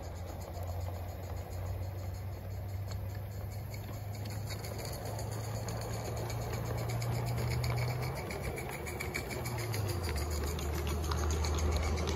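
Large-scale model train running on outdoor track: a steady low motor and gear hum with rapid fine clicking of the wheels on the rails, getting louder as the locomotive approaches and passes. The hum steps up in pitch about halfway through and drops lower near the end.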